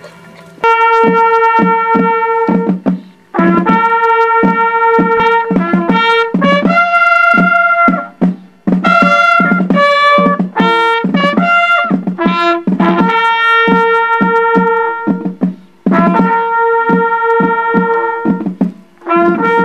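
A trumpet playing a ceremonial military call: phrases of held notes with short breaks between them, starting about half a second in.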